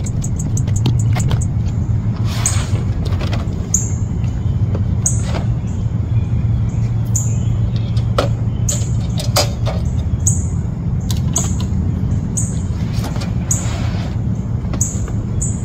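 Crinkling and crackling of a PVC air mattress being unfolded and unrolled by hand over a steady low rumble. Short high chirps repeat every second or so.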